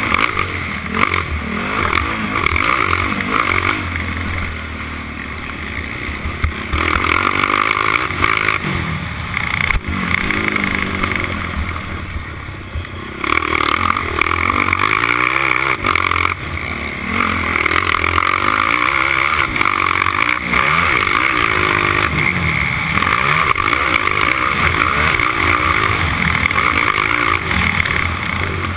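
A four-stroke racing quad's engine heard from its own onboard camera, run hard at high revs. It eases off twice, about five seconds in and again around ten to thirteen seconds in, and picks back up each time as the throttle opens again.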